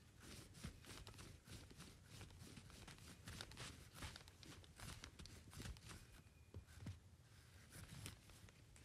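Faint footsteps crunching in snow, a quick, uneven run of soft crunches.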